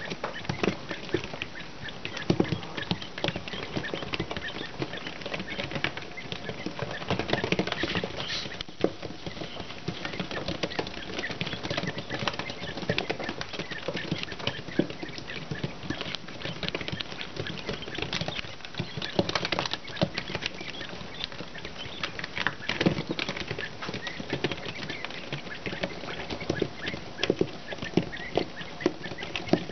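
A brood of ten-day-old quail chicks scurrying and pecking on a cloth floor in a mealworm frenzy: a busy, unbroken patter of small taps and scratches, with chick calls among them.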